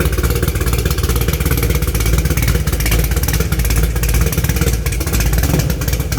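Camaro engine running loud and steady just after starting, a fast, even chatter of exhaust pulses.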